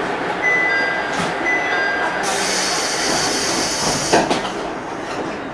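Diesel railcar standing at a station platform with its engine idling. Two short pairs of high electronic chime tones sound in the first two seconds, then a hiss of compressed air lasts about two seconds and ends in a thump.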